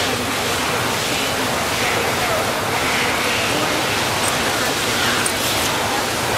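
Steady rushing outdoor noise, with a woman's voice speaking faintly beneath it.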